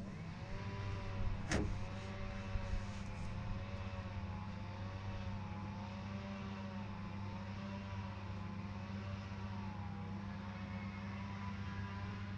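Small boat motor running steadily at trolling speed: a low hum with a whine that wavers in pitch about every two seconds. A single sharp knock about a second and a half in.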